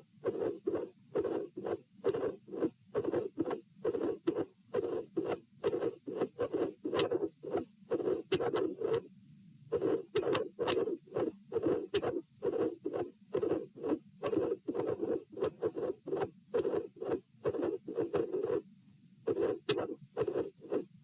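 Heart sounds heard over the pulmonary area: a run of lub-dub beats in an irregular rhythm, broken by a longer pause about nine seconds in and again near the end. The irregularity comes from premature atrial and ventricular contractions.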